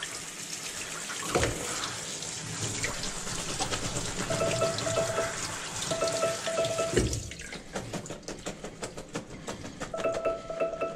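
Pull-down kitchen sink sprayer rinsing diced zucchini, yellow squash and eggplant in a steel pot, the spray running for about the first seven seconds. After that come quick clicks and rattles as the wet vegetables are shaken in the pot. From about four seconds in, a Google smart speaker's timer alarm beeps in repeated pairs of tones.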